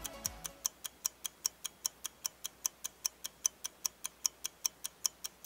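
Click-pen lip treatment being worked at its base to push the product up into the tip: a steady run of small sharp clicks, about five a second.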